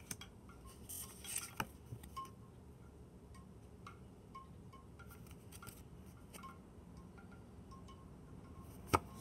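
Tarot cards being handled and turned over: scattered light taps and rustles, with a sharp click near the end. Faint, brief tinkling tones sound now and then behind them.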